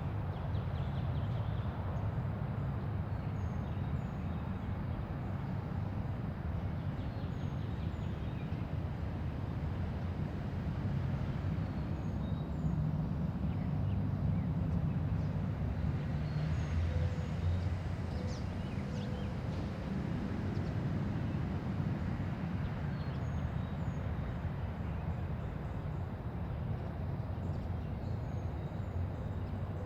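Quiet residential neighbourhood ambience: a steady low hum of distant traffic that grows a little louder midway, with small birds giving short high chirps now and then.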